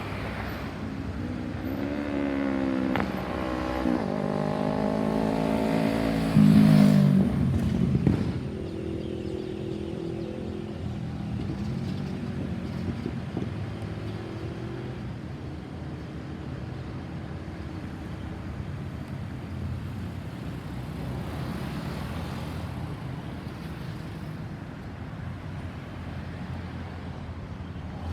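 Road vehicles passing, with an engine rising in pitch as it accelerates. The loudest stretch is a few seconds in, then it settles into steady traffic engine noise.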